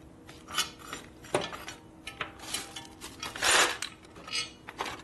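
Small steel hardware, bolts and washers, clinking and rattling as it is picked through and handled, with a longer rattle of rummaging about three and a half seconds in.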